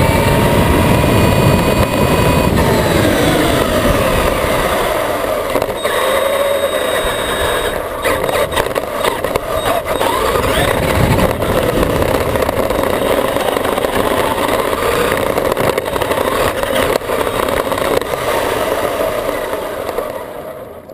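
Traxxas E-Maxx electric RC monster truck heard from a camera mounted on its body: the motors and gearing whine up and down with the throttle over steady tyre and chassis noise, with many knocks as it runs over the driveway and lawn. It slows and goes quiet at the very end.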